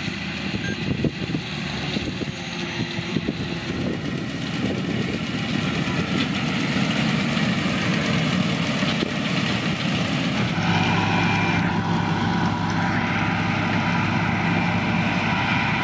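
Diesel engines of a Deutz-Fahr tractor and a John Deere combine harvester running in the field, a steady engine drone. About two-thirds of the way through it changes to a steadier, more pitched hum.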